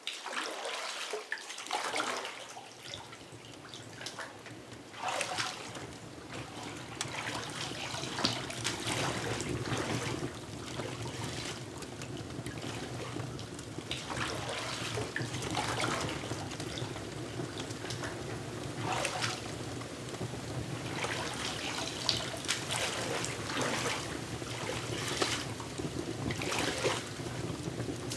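Water trickling steadily, with a louder splashing surge every few seconds.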